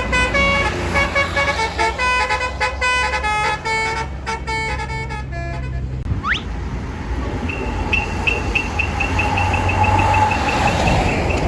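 Bus telolet horn (Basuri musical horn) playing a quick melody of short stepped notes over a steady low rumble. About six seconds in it gives a short rising whoop, then a rapid warbling chirp repeating about four times a second.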